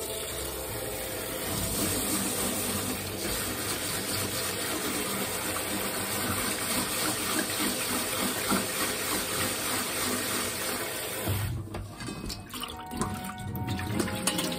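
Kitchen faucet spray head running in a steady stream onto rice in a stainless mesh colander as the rice is rinsed; the flow falls off about eleven seconds in. Soft background music plays, clearer near the end.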